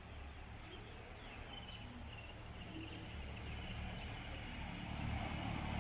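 Outdoor ambience: a steady low rumble with a few short bird chirps, and a motor vehicle growing louder near the end as it approaches.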